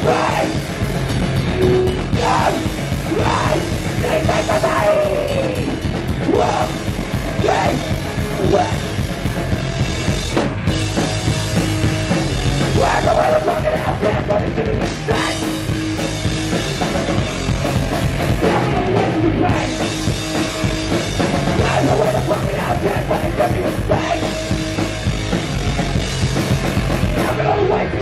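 A hardcore punk band playing live and loud: distorted guitar, bass and fast drums, with a singer shouting into the microphone.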